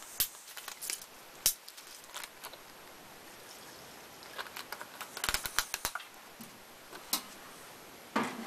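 Light clicks and taps of a plastic acetone bottle being handled and opened while acetone is poured into a wooden bowl holding brass silencer baffle plugs, with a cluster of clicks about five seconds in.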